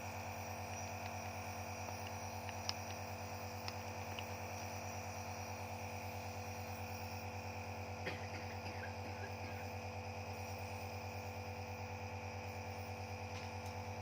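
Nebulizer compressor running with a steady hum, with a few light clicks over it.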